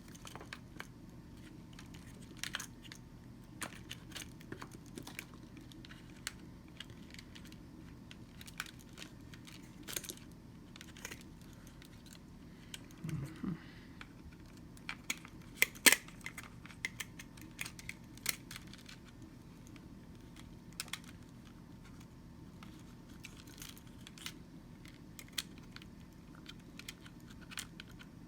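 Scattered small clicks and taps of parts being handled and fitted together while reassembling a food processor's base and power cord, irregular and never more than a few a second. One sharper knock comes a little past the middle, over a faint steady low hum.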